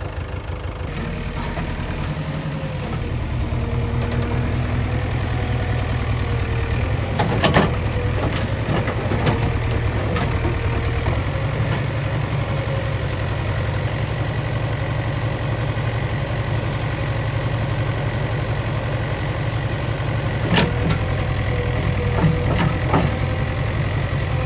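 JCB 3DX backhoe loader's diesel engine running steadily, with a few sharp knocks over it, the loudest about seven seconds in and again near twenty seconds.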